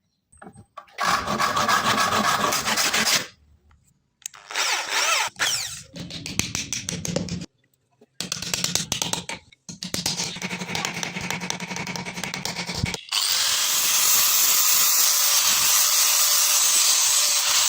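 Power tools working on wood, in several short clips cut one after another, one with a motor speeding up and slowing down. Near the end comes a long steady hiss of abrasive work.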